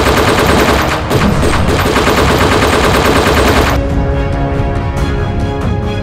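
Rapid machine-gun fire sound effect over music, cutting off abruptly a little under four seconds in, after which dramatic music carries on alone.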